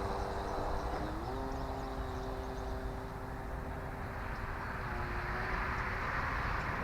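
Electric RC plane's brushless motor and propeller whining in flight, a steady multi-tone hum whose pitch steps up about a second in as the throttle is advanced, then fades away near the end.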